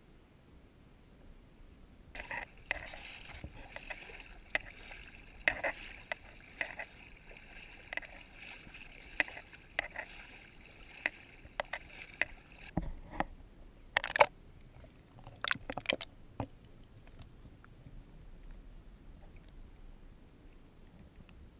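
Shallow seawater splashing and sloshing right against a GoPro held at the surface: a run of sharp splashes starting about two seconds in, a few louder ones after it, then quieter once the camera is under water.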